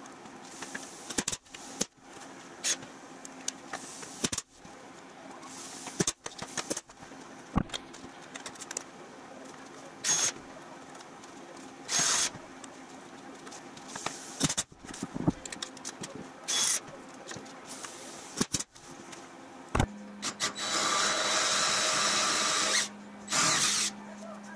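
Aluminium sheet panel being handled against a workbench: scattered clicks, knocks and a few short bursts of noise. Then a hand drill bores into a metal frame rail, running steadily for about two and a half seconds, stopping, and running again briefly near the end.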